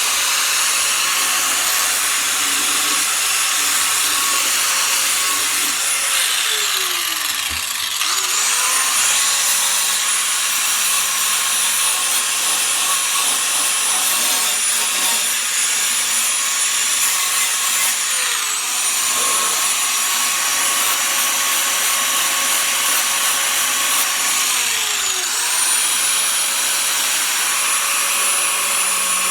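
Angle grinder with a flap disc grinding the edge of a hardened fibreglass part, a steady high-pitched motor whine over a harsh grinding hiss. About seven seconds in the whine drops right down and spins back up, and it dips and recovers twice more later.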